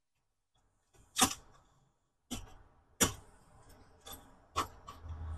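Handling noise from adjusting a Kalashnikov rifle's sling: a series of sharp clicks and knocks from the sling hardware and rifle, about five, the loudest about a second in.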